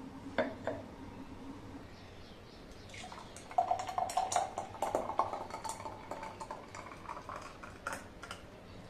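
Two light glass knocks, then thick apple milkshake poured from a blender jar into a stemmed wine glass, a gloopy, splashing pour that starts about three seconds in and stops near the end.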